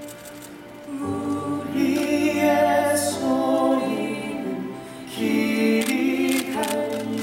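Musical-theatre singing over soft instrumental accompaniment. The singing comes in about a second in, eases off briefly near five seconds, then starts a new phrase.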